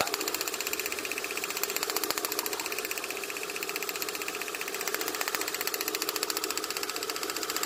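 Idling four-cylinder car engine with a fast, even ticking of sharp clicks: spark leaking and snapping from a faulty spark plug lead, the misfire that makes the car jerk when driven.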